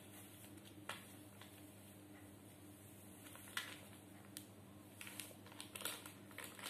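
Faint crinkles and soft clicks of a paper baking-soda packet being handled and tipped over a glass, a few scattered and more of them near the end, over a steady low hum.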